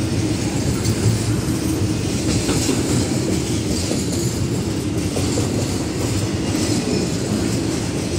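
Double-stack intermodal well cars of a freight train rolling past: a steady low rumble of steel wheels on the rails.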